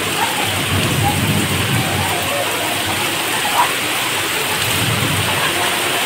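Heavy rain pouring down steadily, a dense even hiss of a downpour with no let-up.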